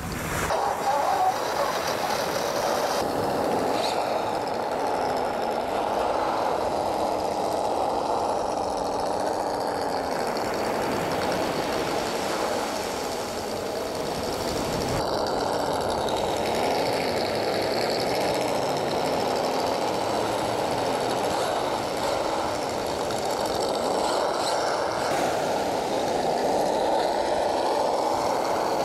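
Tamiya Monster Beetle radio-controlled truck driving on sand: a steady engine-like drone whose pitch rises and falls again and again as it speeds up and slows.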